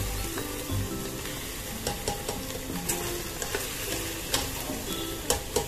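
Minced mutton sizzling as it dry-fries in a pressure cooker, its water cooked off, while a metal spatula stirs it and scrapes against the pot with several sharp clicks.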